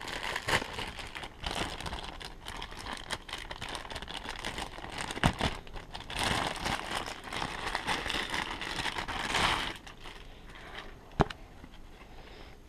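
Plastic packaging bag crinkling and rustling as a carded pair of gloves is pulled out of it, with many small clicks and handling noises; busiest a little past the middle, then quieter with a single sharp click near the end.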